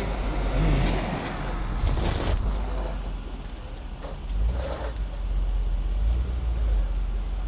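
Pickup truck cab noise while driving over icy roads: a steady low engine and road rumble under an even hiss, with brief louder noises about two seconds and about five seconds in.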